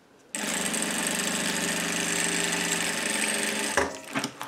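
Industrial lockstitch sewing machine running at a steady speed, stitching a zipper onto bias binding, for about three and a half seconds, then stopping with a few short knocks.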